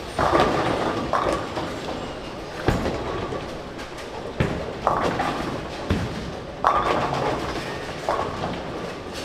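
Busy bowling alley with several lanes in play: bowling pins crash one after another, every second or two, over the steady rumble of balls rolling down the lanes.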